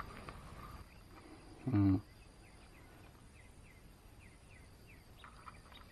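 A man's short low grunt about two seconds in, over a quiet outdoor background. A run of faint, quick high chirps repeats in the background, and a few faint clicks of handling come in the first second.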